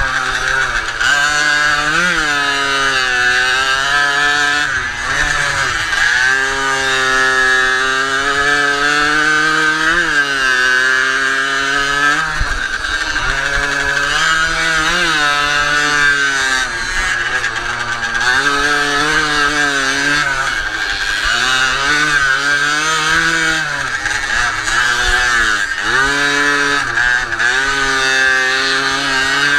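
Jawa Pionier's 50 cc single-cylinder two-stroke engine at racing throttle, heard on board, its high buzz climbing and dropping in pitch every few seconds as the rider works through the corners.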